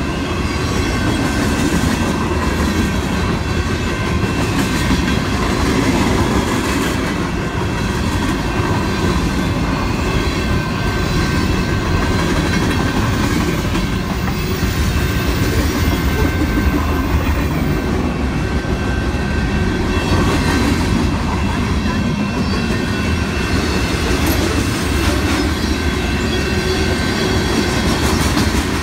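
Freight train of tank cars, hoppers and boxcars rolling past: a steady rumble and clatter of steel wheels on the rails, with a faint steady high-pitched squeal running over it.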